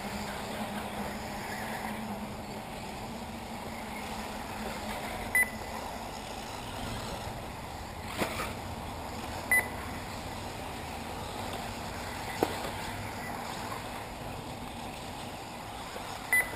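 Three short, high electronic beeps spaced several seconds apart, typical of an RC race's lap-counting system as cars cross the timing line. Under them runs steady open-air background noise, with two sharp clicks in the middle.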